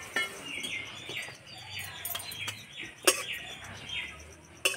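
Whole spices (bay leaves, cardamom and cloves) crackling and sizzling in hot ghee and oil in a steel kadai, starting the moment they go in. A metal spatula knocks against the pan about three seconds in and again near the end.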